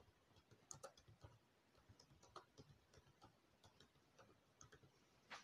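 Faint computer keyboard typing: scattered single key clicks, a few every second, with a slightly louder click near the end.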